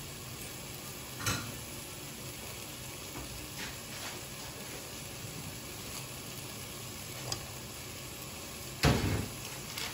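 Chicken and vegetables frying in sauce in a pan, a steady sizzle, with a short knock about a second in and a louder one near the end.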